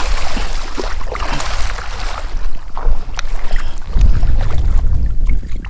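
A red drum thrashing and splashing in shallow water as it is scooped into a landing net, a dense splashing hiss with scattered smacks over the first two seconds or so. From about four seconds in, a low rumble takes over.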